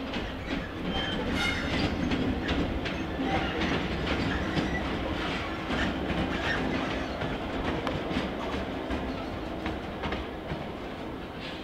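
Class 66 diesel-electric locomotive with its EMD two-stroke V12 engine running as it passes close by, wheels clicking over the pointwork. It is loudest as the locomotive goes past in the first half and eases off as the trailing coach rolls by.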